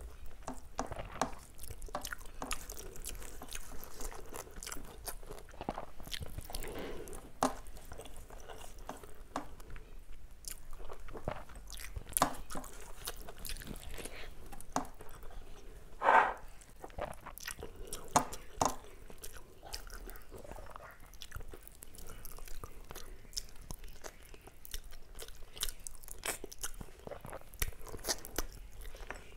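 Close-miked chewing of a mouthful of rice and curry, with many small wet clicks. One louder mouth sound comes about sixteen seconds in.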